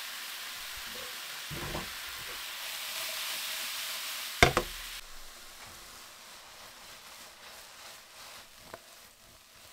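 Quartered champignon mushrooms sizzling in a hot dry frying pan as the pan is shaken to toss them. Halfway through, one loud knock of the pan against the electric hotplate, after which the sizzle fades as the pan is lifted off the plate; a small knock comes near the end.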